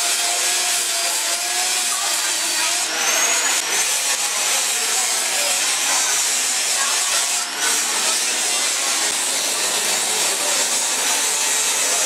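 Handheld angle grinder grinding into metal, a continuous harsh high grinding noise; its pitch rises briefly about three seconds in, and it eases off for a moment about two-thirds of the way through.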